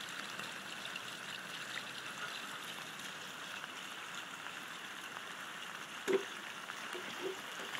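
Storm water flowing steadily with a trickling hiss. A short knock about six seconds in, and a softer one a second later.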